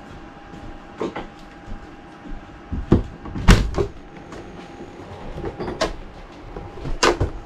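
A series of sharp knocks and bumps, about six in all, the loudest about three and a half seconds in, over a steady background hum.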